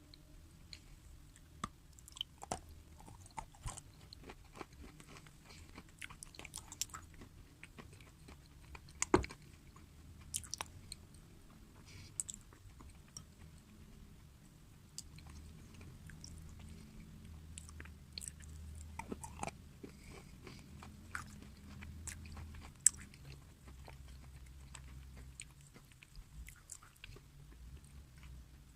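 Close-miked chewing and biting of crisp food: a steady run of short crackling crunches, with two much louder sharp bites, one about nine seconds in and one near the end.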